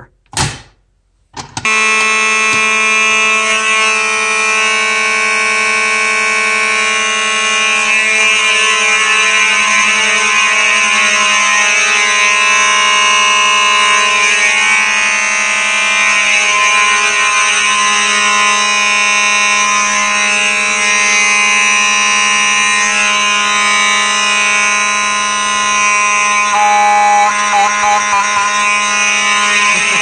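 A Simplex pull station is pulled with a short clack. About two seconds in, Simplex 4903 electromechanical fire alarm horns start sounding on continuous: a loud, steady, unbroken buzzing horn tone.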